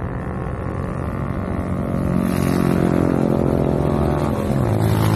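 A motor running, a steady pitched hum over a noisy rumble, growing louder about two seconds in and shifting lower in pitch near the end.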